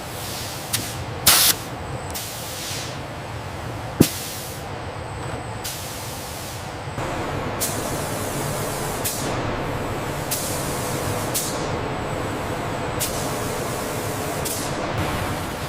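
Steady industrial workshop noise with short bursts of hissing air every second or two, like pneumatic releases. The loudest burst comes about a second in, and a sharp click sounds about four seconds in.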